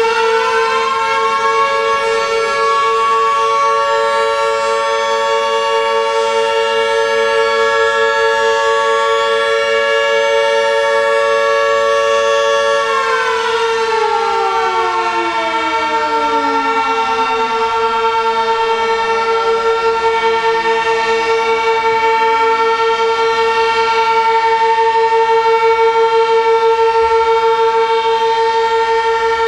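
Two outdoor warning sirens, a Sentry 16V1T-B and a Federal Signal Model 2, sounding together in a steady-tone test. One holds a steady tone throughout. The other finishes winding up at the start, holds a slightly higher tone, then winds down with falling pitch from a little under halfway through.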